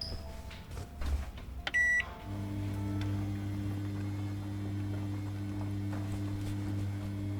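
Washing machine being started: a few clicks, a short electronic beep, then its motor starts with a steady low hum.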